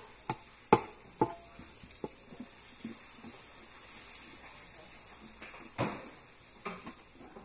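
Knife knocking and scraping on a cutting board as a large fish is cut: three sharp knocks in the first second and another near six seconds, with steady scraping between.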